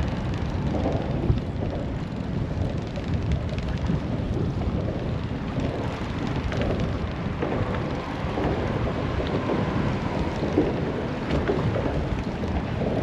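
Steady low wind rumbling on the microphone on an open boat, with no clear engine tone.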